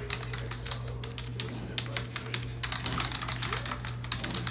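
Rapid typing on a computer keyboard, a fast run of key clicks with a brief pause about two seconds in, over a steady low hum.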